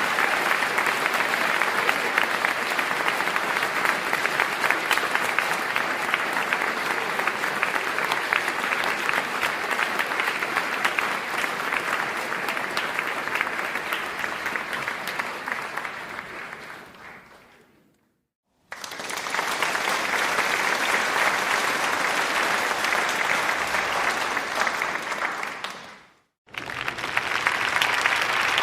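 Applause: a long stretch of dense clapping fades out about two-thirds of the way through, and after a brief silence a new round of applause starts. That round fades out near the end and another round begins right after.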